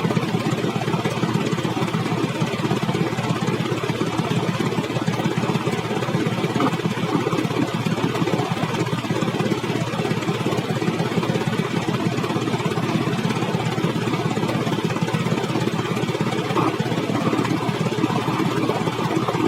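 A vehicle engine running steadily, with no change in pitch or level.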